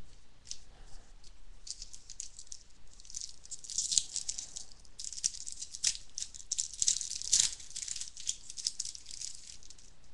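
Rustling and crinkling of trading card packs and cards being handled, in irregular scuffing strokes with a few light clicks.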